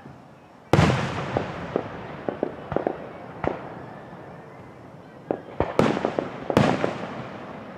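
Aerial fireworks bursting: a loud boom a little under a second in that dies away slowly, followed by scattered crackling pops. A second cluster of loud bursts comes about five to six and a half seconds in.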